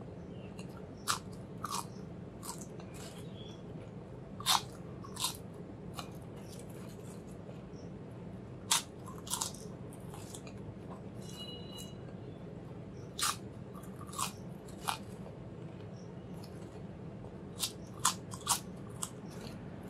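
Crisp potato chips crunching between the teeth as they are bitten and chewed, in short, sharp, irregular crunches about a dozen times, over a steady low hum.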